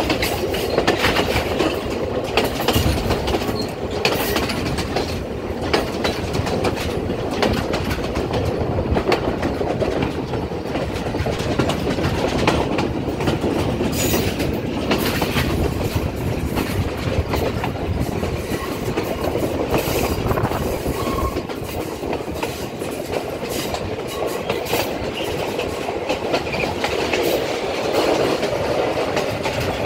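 A passenger train rolling along at speed, heard from on board: a steady rumble of wheels on track with irregular clacks as the wheels cross rail joints.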